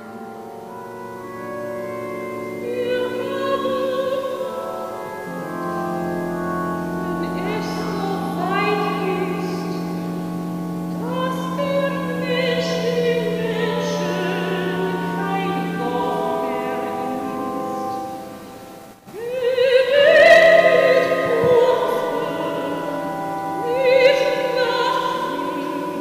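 Woman's operatic voice singing long, wavering sustained notes, layered with other held notes. The sound drops out briefly about nineteen seconds in, then the singing returns louder.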